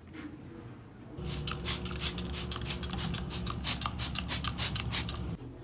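Rhythmic scrubbing on a bathroom sink counter, about four to five strokes a second, over a steady low hum; it starts about a second in and stops shortly before the end.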